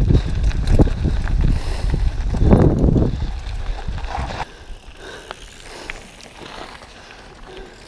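Downhill mountain bike running fast over a loose gravel trail: tyres crunching on stones, the bike rattling over bumps and wind rumbling on the camera microphone. The noise drops sharply about four and a half seconds in as the bike slows to a quieter rolling sound.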